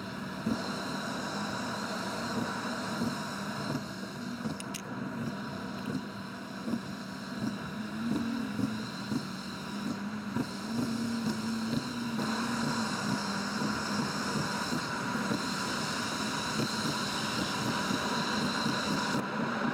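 Road noise inside a car cruising on an expressway, sped up six times: a steady rush of tyre and wind noise over a hum, growing a little louder about twelve seconds in.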